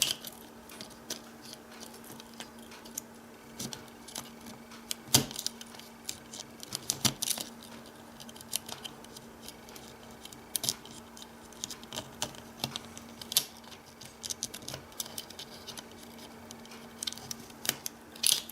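Scattered small clicks and snips of thin wires being cut on a model locomotive frame, with small parts handled in between; the sharpest snap comes about five seconds in. A faint steady hum runs underneath.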